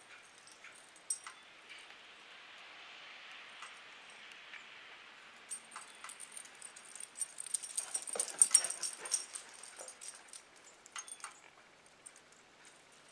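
A dog's short, high-pitched cries, thickest in a loud flurry about halfway through, with scattered sharp clicks before and after.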